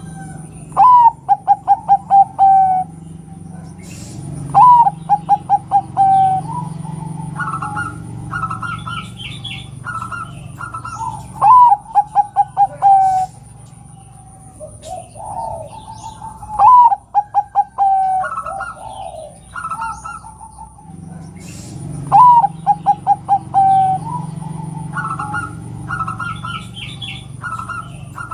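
Zebra dove (perkutut) cooing: each phrase is a rising note followed by a fast stutter of six or seven short coos, repeated every four to six seconds. This is the female's call, used as a lure to set males singing. Higher chirps from other birds come between the phrases.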